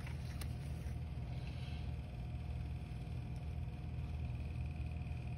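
Steady low background hum, with a faint click or two of trading cards being handled.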